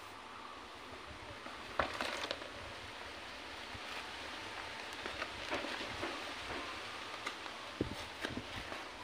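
Light taps and rustles of a hand touching the gravel and moss top-dressing of a bonsai pot, over a steady background hiss. The sharpest knock comes about two seconds in, and a few smaller ones fall near the end.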